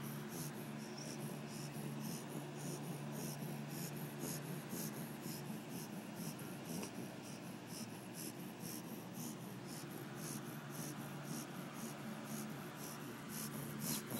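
Blue pit bull snoring in its sleep: a rasping sound repeating about three times a second over a steady low hum.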